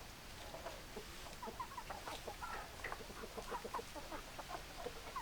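Chickens clucking, many short overlapping calls picking up about a second in, over a low steady hum.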